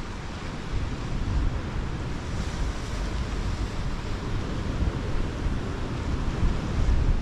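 Gusty sea wind buffeting the microphone in a low, uneven rumble, over a steady wash of surf on the rocks.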